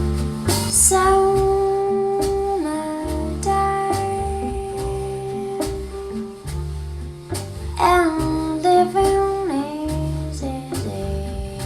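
Recorded music played over a sound system: a singer holds long notes that slide between pitches, over repeating bass notes and plucked guitar.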